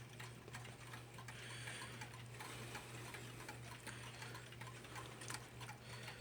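1929 Sessions spring-driven mechanical mantel clock ticking faintly and evenly, with a steady low hum underneath.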